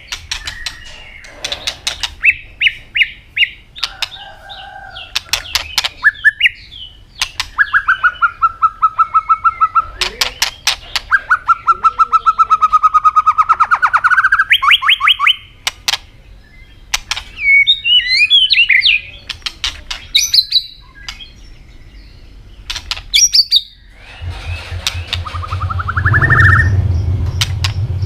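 White-rumped shama (murai batu) singing: fast rattling trains of sharp clicks alternating with runs of repeated whistled notes and quick warbling phrases. A low buzz joins under the song near the end.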